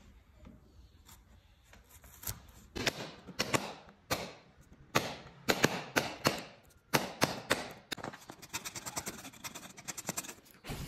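Hand woodworking tools striking and working wood: irregular sharp knocks, loudest in the middle, then a quick run of light clicks near the end.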